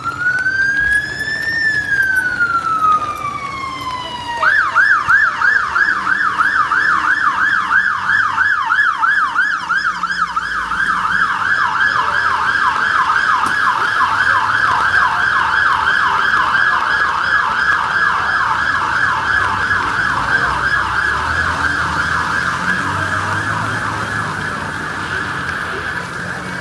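Emergency vehicle siren: one slow wail that rises and falls over the first four seconds or so, then switches to a rapid yelp that carries on, easing slightly near the end.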